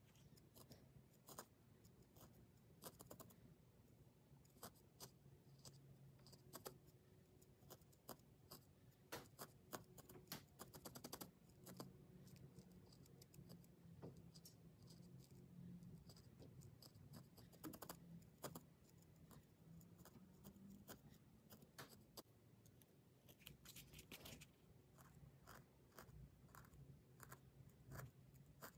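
Felting needle stabbing repeatedly into a small piece of wool over a foam pad: faint, irregular pokes with a few quicker runs of jabs.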